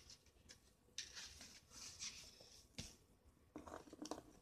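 Faint taps and rustling of paper oracle cards being handled on a tabletop, close to silence, with a couple of sharp clicks and a cluster of small ticks near the end as a card is touched and picked up.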